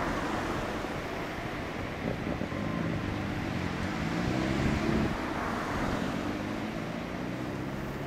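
Honda VTR250's V-twin engine running through a WR'S aftermarket silencer, its pitch rising over about two seconds toward the middle and then dropping back.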